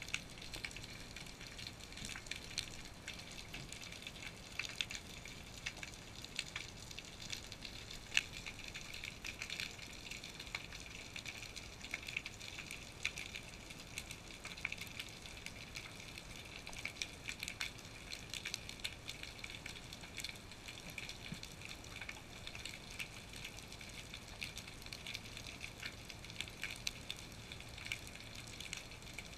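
Underwater crackle heard through a GoPro's waterproof housing: a steady, dense patter of tiny clicks, typical of the sea's background crackle from the seabed.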